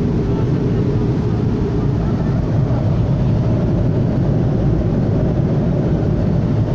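Steady cabin noise of an airliner in flight, an even low-pitched rumble heard from inside the passenger cabin.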